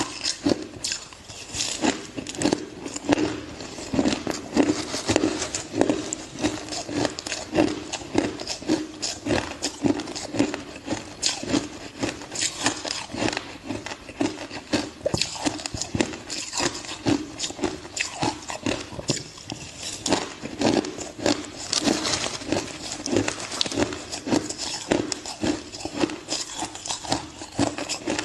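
Ice being bitten and chewed: a rapid, irregular run of sharp crunches and cracks, several a second.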